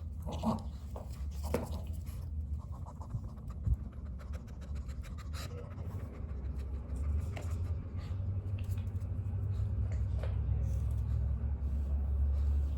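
A small dog panting close by, over a steady low rumble and scattered scratchy rustling and clicks.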